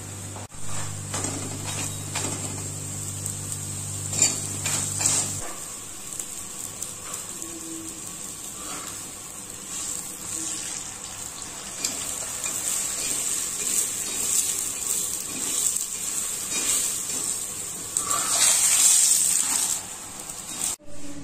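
Oil sizzling with crackles on a hot iron tawa as a paratha fries, loudest near the end. A low hum stops about five seconds in.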